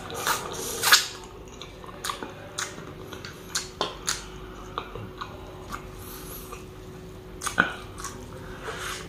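Close-up eating sounds: biting into and chewing dry-fried adobo mutton, with irregular sharp mouth clicks and smacks. The loudest come about a second in and again near the end.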